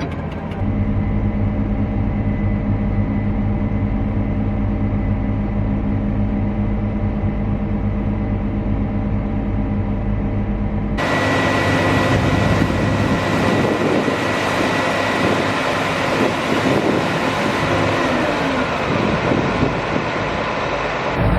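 Heavy farm machinery engine running steadily, then, after an abrupt cut about halfway through, a louder, rougher machine running with rattling noise.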